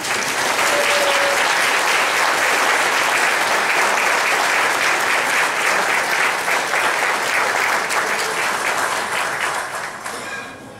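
Audience and choir applauding a soloist's entrance: a steady, dense patter of many hands clapping that starts at once and fades out near the end.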